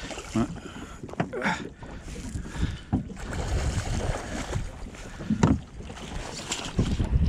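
Wind buffeting the microphone over choppy water slapping a small boat, with splashes from a hooked pike thrashing at the surface; the sharpest hit comes about five and a half seconds in.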